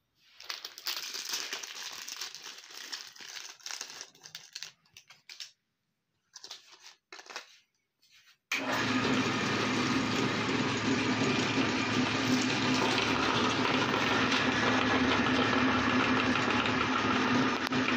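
Intermittent rustling and handling noises, then, about eight and a half seconds in, an electric meat grinder's motor starts suddenly and runs with a steady hum.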